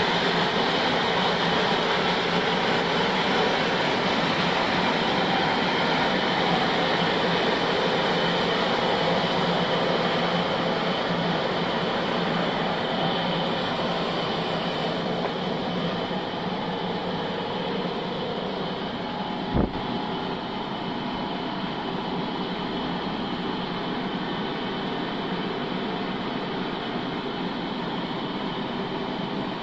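Bandsaw sawmill machine running steadily, its noise easing slightly over time, with a single sharp knock about two-thirds of the way through.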